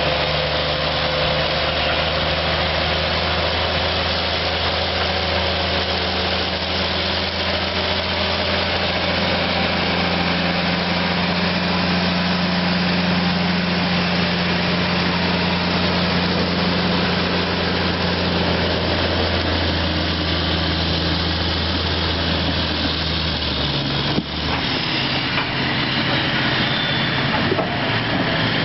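Heavy diesel engine of a loaded off-highway logging truck running steadily with a low drone as the truck drives by. About 24 s in the low engine note drops away suddenly and the sound changes.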